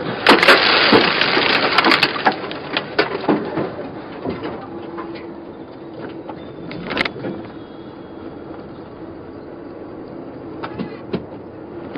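A car crash ahead heard from inside a truck's cab: a loud burst of impact and scattering debris for a second or two near the start, a few sharp knocks after it, then the steady road noise of the truck driving on.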